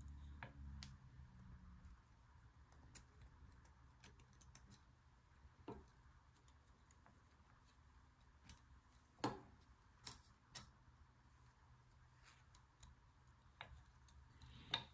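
Faint, scattered light metallic clicks and ticks as a thin steel oil-ring rail is spiralled by hand into its groove on an LS engine piston, with near silence between them.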